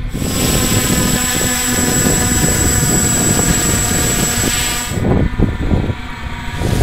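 Hexacopter motors and propellers buzzing steadily, with wind rumble on the microphone. About five seconds in the high part of the buzz drops out abruptly, leaving a lower rumble.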